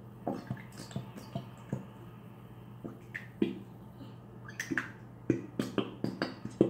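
Plastic glue bottle squeezed by hand, its walls crackling and clicking irregularly, more often in the second half.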